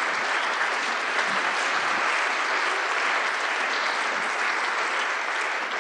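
Audience applauding steadily at the end of a poem.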